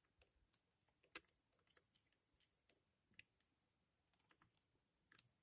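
Faint, irregular clicks and taps of a mixing stick stirring clear glue and blue food colouring in a bowl.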